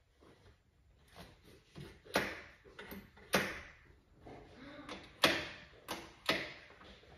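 A string of irregular sharp knocks and clacks, about nine in all, the loudest about five seconds in: hard parts and tools being handled and set down while the e-bike is assembled.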